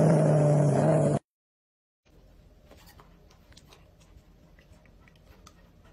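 A dog growling loudly for about a second, then cutting off abruptly. After a short gap come faint, scattered light clicks and taps over a low room hum.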